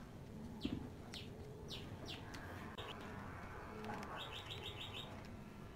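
Small birds chirping: short falling chirps and a quick run of about six high notes near the end, over faint background noise. A single knock sounds under a second in.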